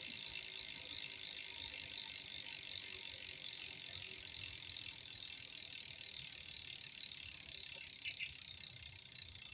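Three-pawl bicycle rear hub freewheeling: the pawls click over the ratchet ring so fast they blend into a steady buzz as the wheel spins, slowly fading as it coasts. A brief double click comes about eight seconds in.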